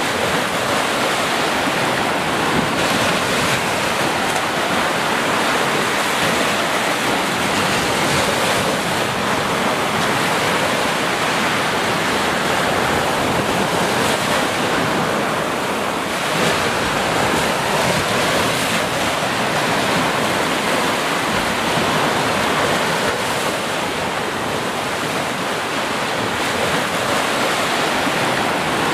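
Small ocean waves breaking and washing up a sandy beach: a continuous rush of surf that swells and eases gently.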